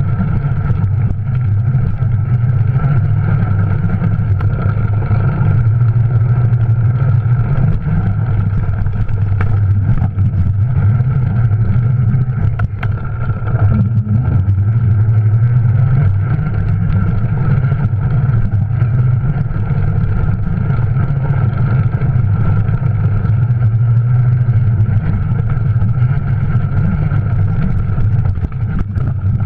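Juiced RipCurrent S e-bike's electric hub motor whining steadily under a loud low rumble from the bike running over a dirt trail. The sound is carried straight to the camera through a rigid aluminum mount with no isolation.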